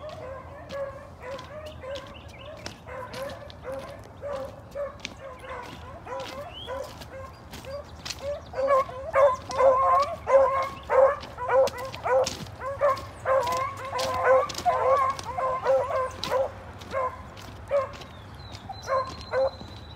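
Beagles baying while running a rabbit on its scent trail: a rhythmic string of hound calls, faint at first, much louder from about eight seconds in, then tailing off to a few scattered calls near the end.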